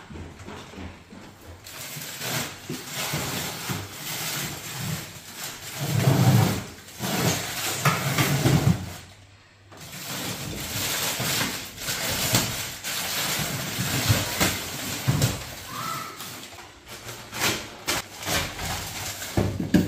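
Plastic bags rustling and crinkling as frozen food packages are handled in an upright freezer and a bag of frozen fish is pulled open, with short handling knocks now and then.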